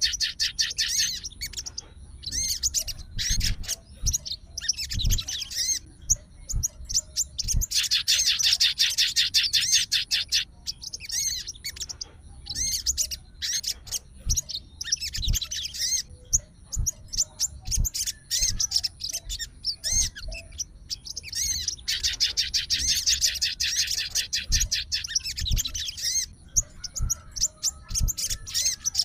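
A sogon songbird singing in bouts of rapid, fast-repeated high chattering notes, each bout lasting about one to three seconds, with short pauses between.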